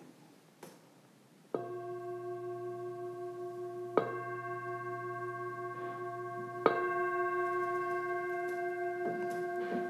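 A meditation singing bowl struck three times with a wooden mallet, about a second and a half in, at four seconds and near seven seconds. Each strike rings on in a steady, overlapping chord, marking the close of the meditation.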